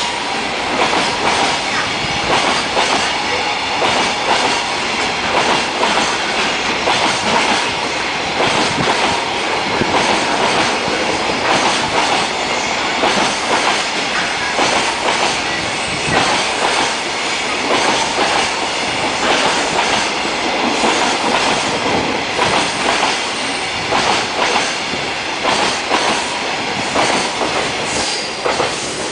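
Long train of container freight wagons rolling past at speed, the wheels clattering over rail joints in a continuous stream of clicks.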